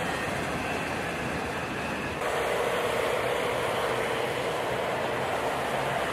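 Freight train cars rolling past in a steady rumble and rattle. About two seconds in the sound switches abruptly to a second train, CSX diesel locomotives moving by, slightly louder, with a steady hum over the rumble.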